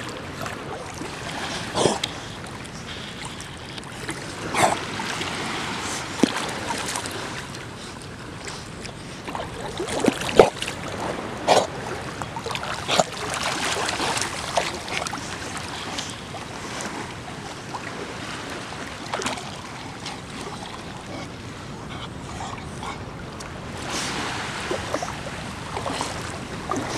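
Water sloshing and splashing as dogs swim, with a few short, louder splashes over a steady wash of moving water.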